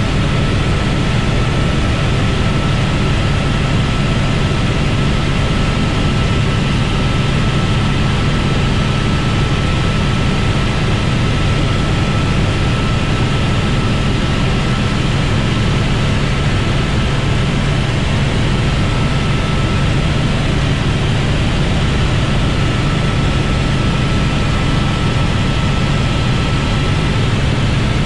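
Helicopter in flight heard from inside the cabin: a loud, steady drone of engine and rotor with a thin high whine running through it.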